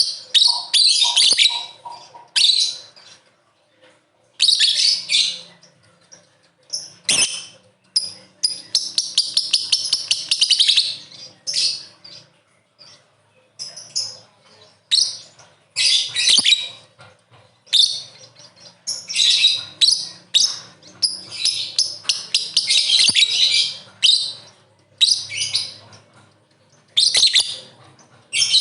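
Lovebird chattering in shrill, high-pitched bursts of a second or two each, broken by short pauses.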